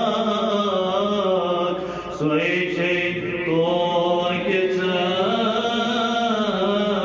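Solo voice chanting devotional verses unaccompanied, in long drawn-out notes that slide up and down, with a brief break about two seconds in.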